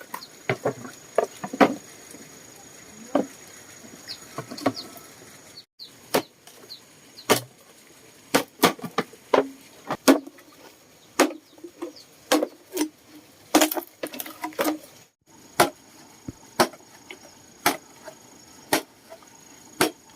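Irregular sharp knocks and clinks of kitchen or eating utensils, about one a second, over a steady high insect drone. The sound drops out briefly twice.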